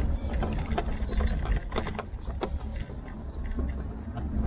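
A Tern HSD e-bike rolling over a rough road crossing and path: a steady low rumble of wind and tyres, with frequent knocks and rattles from bumps in the surface and a brief run of high ticking about a second in.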